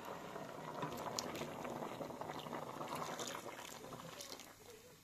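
Whitish liquid for rice milk at a rolling boil in a metal pot on a gas burner, bubbling steadily. Near the end, soaked rice slurry is poured into the pot and the bubbling dies down.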